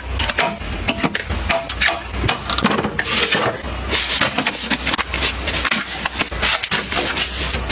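Small items and packaging being handled and set down: a busy run of clicks and taps with stretches of rubbing, rustling noise, over a low steady hum.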